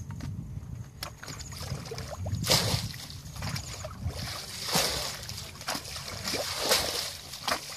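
Muddy water being bailed out of a shallow ditch with a plastic bucket: the bucket scooping and flinging water, with three big splashes about two seconds apart starting about two and a half seconds in, and smaller sloshes between them.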